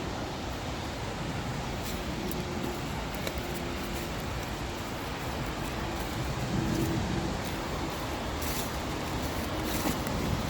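Steady rushing of a waterfall, with a few faint clicks on top.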